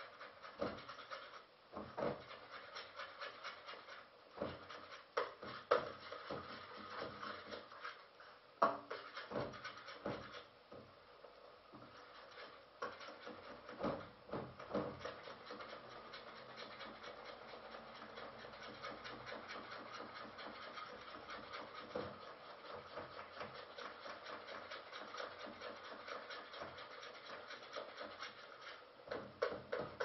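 Cooking at a stove: scattered knocks and scraping of a utensil against a pan, settling into a steady faint scratchy texture for the second half.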